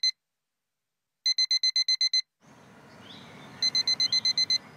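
Electronic alarm clock beeping: bursts of rapid high beeps, about nine a second, each burst lasting about a second with pauses between. A steady background noise comes in about halfway through, under the last burst.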